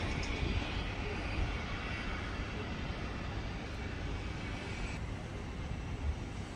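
Learjet 60XR business jet's engines running, a steady rushing jet noise that slowly eases, its higher hiss falling away about five seconds in.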